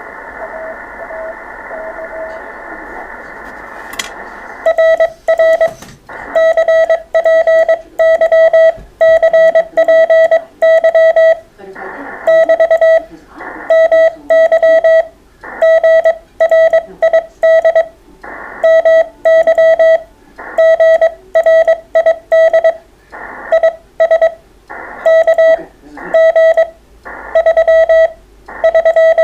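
Amateur radio transceiver sounding Morse code on a single tone of about 650 Hz. For the first few seconds the signal is fainter, among receiver hiss. After a click about four seconds in, a loud, crisp tone keys out dots and dashes at a steady pace.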